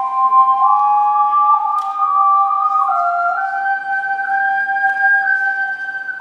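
Two ocarinas playing a slow melody in two-part harmony with clear, flute-like held notes, the upper part stepping upward through the phrase.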